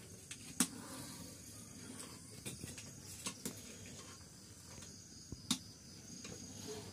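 A long metal spatula scraping and knocking against a wide metal pan as milk is stirred, giving a few sharp clicks over a low steady hiss. Crickets chirp faintly in the background.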